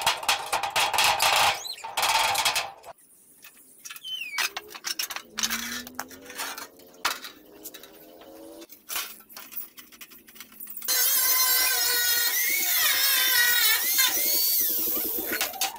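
A power tool at work in spurts, with a loud stretch of wavering high-pitched squealing in the last few seconds.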